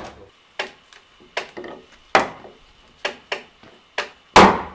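Wooden mallet knocking on timber in a post-and-beam frame: about seven sharp, irregularly spaced strikes, the loudest near the end.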